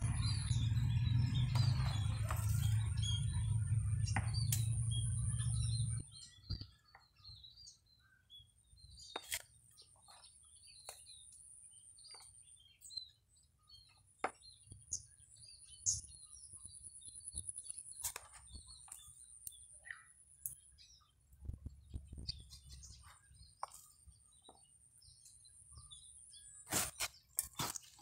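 Scattered clicks and scrapes of hands pressing soil and small stones around coconut palms in a clay bonsai pot, with birds chirping in the background. A loud low rumble fills the first six seconds and then stops suddenly.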